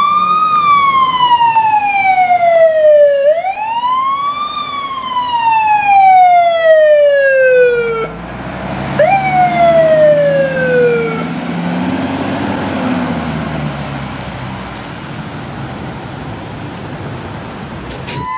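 Fire engine siren wailing in long sweeps, each rising quickly and falling slowly. Two full sweeps stop about eight seconds in, then one shorter sweep follows. The truck's engine is then heard rumbling as it drives past, swelling and fading.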